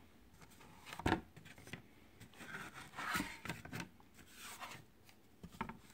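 Cardboard photo mounts being handled and slid over one another: a sharp knock about a second in, then rubbing and scraping strokes and a few light clicks near the end.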